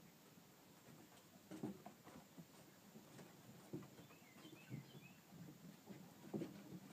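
Faint scuffling and soft knocks of six-week-old Shiloh Shepherd puppies wrestling and scrambling on wooden deck boards, with a quick run of short high chirps about four seconds in.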